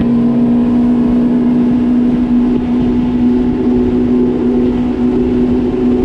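Yamaha FX HO WaveRunner's four-stroke engine running flat out at a steady pitch, with the rush of wind and water underneath.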